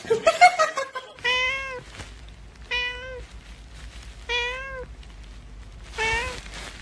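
A cat meowing four times, about a second and a half apart, each call rising a little and then falling. A short burst of loud knocking and clatter comes just before the first meow.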